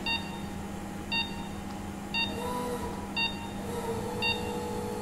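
Patient monitor's pulse oximeter beeping once per heartbeat, a short beep about every second, over a steady low hum of theatre equipment.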